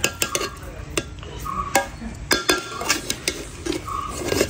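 Steel ladle stirring and turning cooked biryani rice in a large metal pot, with a rustling scrape through the rice and repeated sharp clinks of the ladle against the pot.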